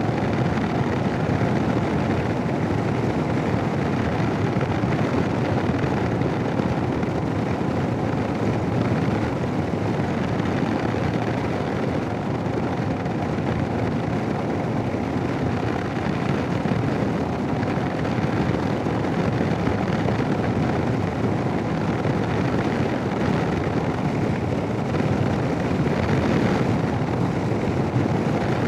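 Steady wind rush and engine noise of a Royal Enfield Himalayan single-cylinder motorcycle being ridden, picked up by a Sena 10C Evo helmet intercom microphone.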